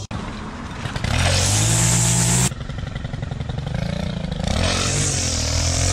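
Gas string trimmer engine revving up to full throttle while the line cuts grass. It drops back suddenly about halfway through, then revs up again and holds.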